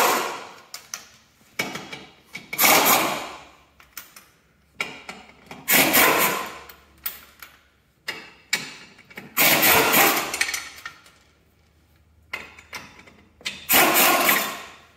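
Air impact wrench with a 3/4-inch socket hammering lug nuts off a garden tractor's rear wheel: five bursts of about a second each, a few seconds apart, with light clicks between.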